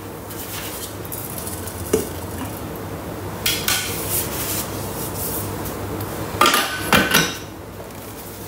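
Stainless steel Thermomix mixing bowl clattering and knocking as brown sugar is tipped and tapped out of it into a plastic container. The loudest metallic knocks, with a short ring, come about six and a half to seven seconds in.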